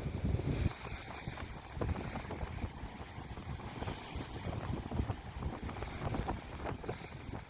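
Wind buffeting the microphone of a moving vehicle, with a heavy gust in the first second, then a steady rough rumble of road noise with many small crackles and rattles.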